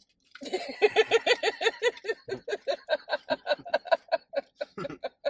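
A person laughing hard in a long run of rapid, rhythmic 'ha-ha' pulses, about five a second, that thin out near the end.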